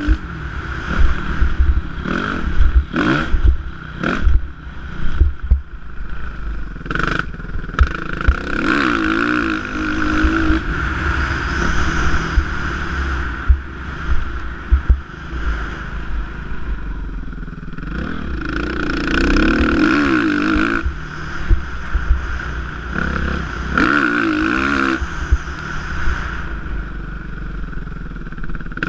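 Suzuki motocross bike's engine, heard from a GoPro mounted on the bike, revving up and falling off again and again as it rides the track, with sharp knocks and clatter from the bike over the rough dirt.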